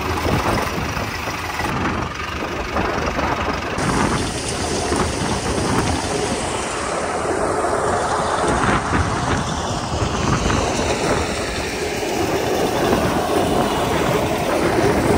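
Kamdhenu grain thresher, driven by an Eicher 485 tractor, running steadily as chickpeas are threshed: a continuous mechanical noise with no change in pace.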